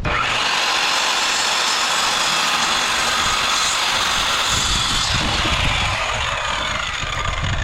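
Electric power tool starting abruptly and running steadily with a high whine, its pitch dropping over the last couple of seconds.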